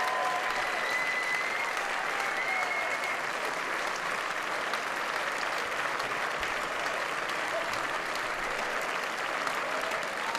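A large theatre audience applauding steadily, a dense, even clapping.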